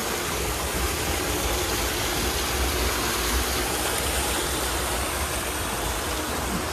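Rainwater runoff pouring through a curbside storm drain grate in heavy rain: a steady rushing of water with a low rumble underneath.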